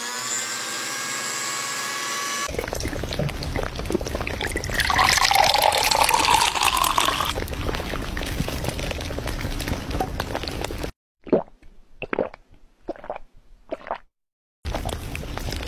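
A blender running, then juice pouring for several seconds, then a series of short slurping sips through a straw.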